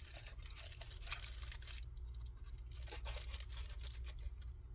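Rustling and light crinkling of a chocolate bar's wrapper being handled and opened, with a few small clicks, over a steady low hum.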